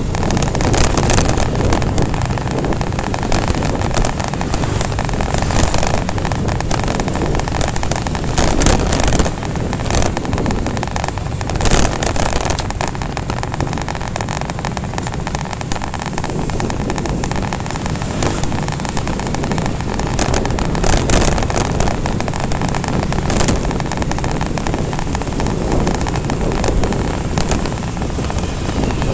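Riding a Honda Revo FI underbone motorcycle in a pack of motorcycles: steady wind buffeting on the microphone over engine and road noise, with frequent short gusts.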